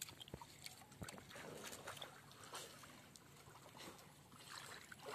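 Faint sloshing and splashing of pond water stirred by someone wading, with a few soft clicks.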